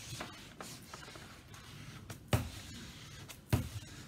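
Diamond painting canvas and its glossy cover sheet being handled on a tabletop: light rustling and small ticks, with two sharp taps a little over a second apart in the second half.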